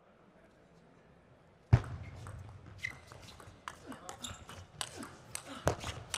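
A table tennis serve and rally. After a hush of over a second comes one sharp knock with a low thud, the loudest sound, then the celluloid ball clicks off the rubber bats and the table about twice a second.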